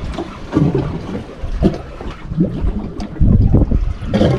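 Wind buffeting the microphone in irregular gusts, with water slapping against the boat's hull.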